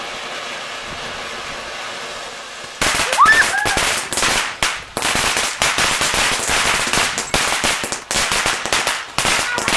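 A Blazer ground fountain firework spraying sparks with a steady hiss. About three seconds in it breaks into loud, rapid crackling and popping that goes on to the end.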